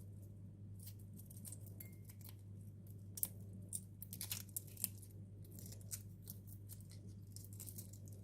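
Small handling sounds of food preparation: a run of light clicks, taps and rustles, the sharpest about three seconds in and a cluster just after, over a steady low hum.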